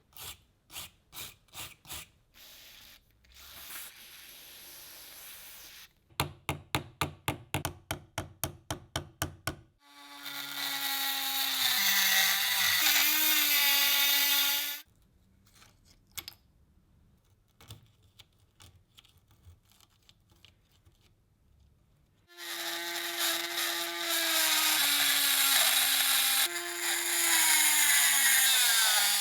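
Metal workshop sounds: scattered clicks, then a quick run of about a dozen sharp strikes, then a small power tool running twice for several seconds each, its pitch sagging under load and winding down near the end.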